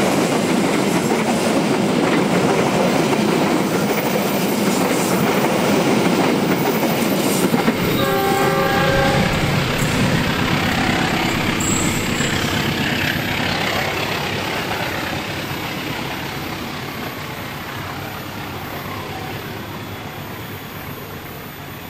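KAI Argo Lawu passenger train rolling past close by, its wheels clattering over the rails, with a short horn blast about eight seconds in. After the last coach has passed, the rumble fades steadily as the train moves away.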